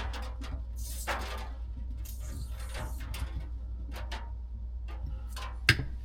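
Scattered rustles and light knocks of things being handled, over a steady low hum.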